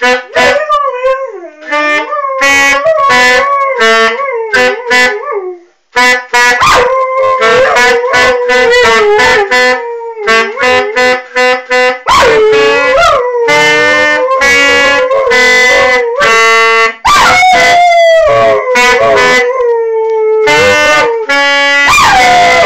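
Yellow Labrador howling along to a saxophone: long howls that slide in pitch, often falling, laid over the saxophone's short repeated notes, with a brief pause about six seconds in.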